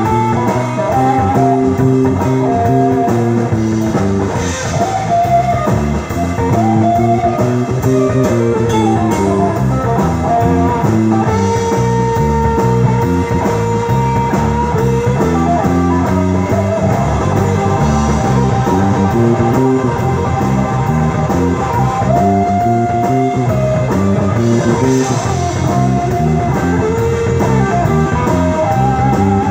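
Live blues-rock band playing: an electric guitar plays lead lines, some notes held long, over bass guitar and drums.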